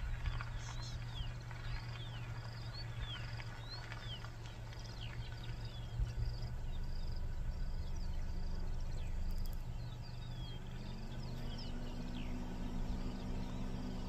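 Outdoor grassland ambience: many short, falling bird chirps and a high note repeating about twice a second, over a steady low hum that steps up in pitch about ten seconds in.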